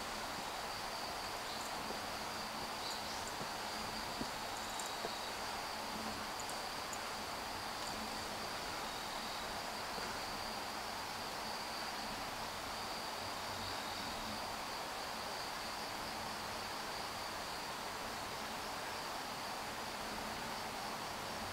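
Insects singing: a steady high-pitched drone that does not let up, over a soft background hiss, with a few light footsteps in the first five seconds.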